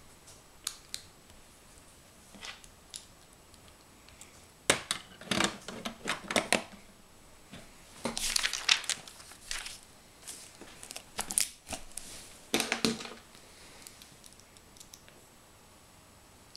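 Plastic Lego bricks being handled and pressed onto a build: scattered sharp clicks and rattles, coming in dense clusters, with a crinkly rustle a little past the middle.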